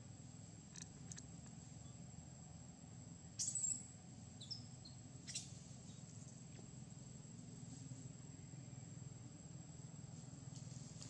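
Faint outdoor ambience: a steady high-pitched insect drone over a low hum, with a few soft clicks. About three and a half seconds in comes a short high chirp, followed by a quick falling whistle.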